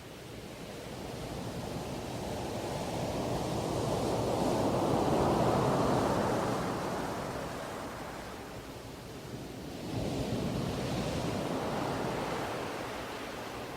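Sea waves washing onto the shore: one swell builds and peaks about five seconds in, then fades, and another surges in about ten seconds in.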